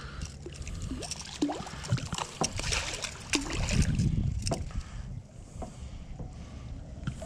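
Water splashing, with scattered knocks and clicks, as a small hooked tarpon is worked to the landing net; the splashing is heaviest in the middle.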